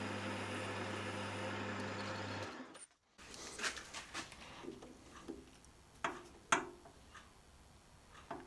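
Metalworking lathe running steadily with a motor hum, taking a cut in aluminium, until it cuts off about three seconds in. Then come scattered light clicks and knocks of metal tools being handled.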